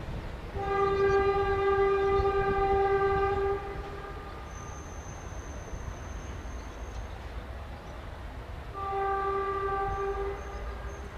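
Horn of a DC LM track-maintenance draisine sounding two single-tone blasts, the first about three seconds long, the second shorter near the end, over the low rumble of an engine running.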